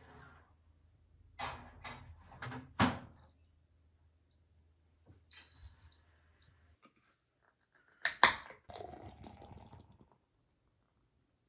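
Balmuda toaster oven being loaded by hand: clicks and knocks of the door and the plate, a short high ring about five seconds in, and two sharp clicks a little after eight seconds, the loudest sounds here.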